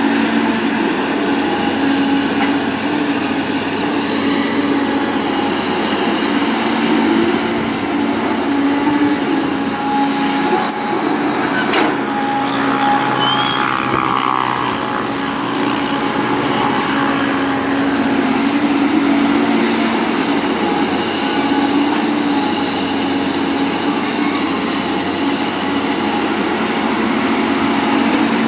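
Caterpillar excavator's diesel engine running steadily under load while it scoops sand, with a couple of sharp metallic knocks about halfway through.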